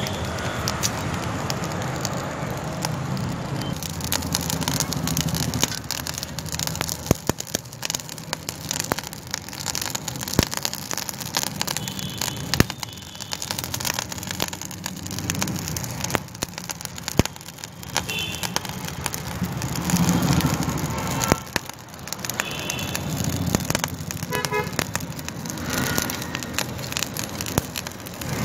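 Blacksmith's forge fire crackling over a steady low hum, with scattered, irregular sharp clicks and knocks.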